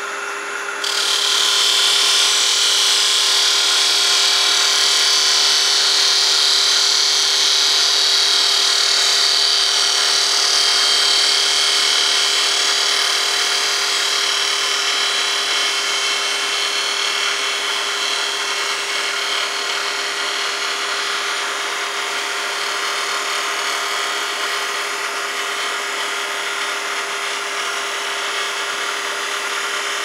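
Grizzly wood lathe spinning a wooden cylinder fast while a turning tool takes a light shear cut across it: a steady hiss of cutting starts about a second in and slowly fades, over the lathe's steady hum.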